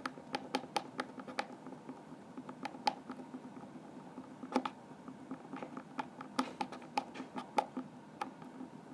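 Small plastic Littlest Pet Shop poodle figurine tapped and bounced by hand on a hard floor: irregular light clicks, several a second.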